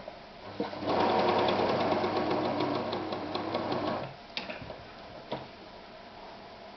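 Victoria 124 sewing machine running under its electric motor drive, stitching a wide zigzag for about three seconds with a rapid, even needle rhythm before stopping. A couple of clicks follow.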